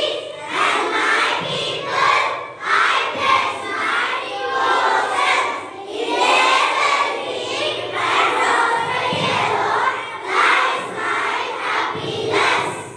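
A large group of children reciting a pledge together in loud unison, phrase by phrase.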